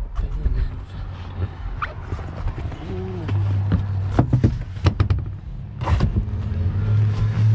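Knocks and clicks as an upholstered boat seat cushion is lowered onto its base and pressed down into place, a cluster of them in the second half, over a steady low hum.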